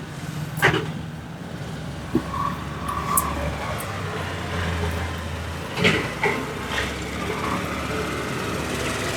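Street traffic with a vehicle engine running, its low drone swelling for a couple of seconds mid-way. Through it come about six short, sharp hand strikes of a head massage.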